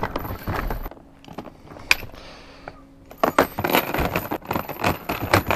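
Metal chain rattling and clinking as it is pulled off a plastic storage tote. A scattering of clinks, then a quieter lull with a single sharp click, then a dense run of rattling in the last couple of seconds.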